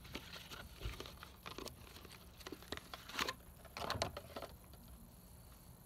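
Cardboard box of aluminium foil being handled and the foil roll pulled out of it: faint scattered rustles, crinkles and taps that die away after about four and a half seconds.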